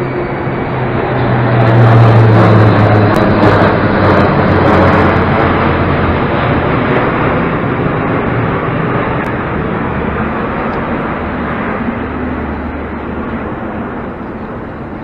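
A formation of military jets flying overhead. The loud rushing engine noise swells to a peak about two seconds in, its low drone dropping in pitch as they pass, then slowly fades away.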